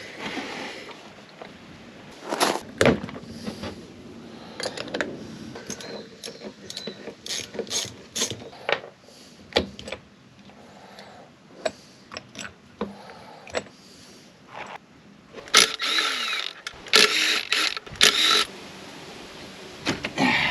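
Ratchet wrench and metal hand tools clicking and clanking in irregular short bursts as parts are unbolted from a car engine, with a few louder bursts of rattling near the end.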